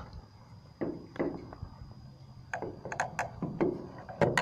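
Scattered light knocks and clicks of a plastic bottle being handled at a pickup's fuel filler neck while the last of a fuel treatment is poured into the tank.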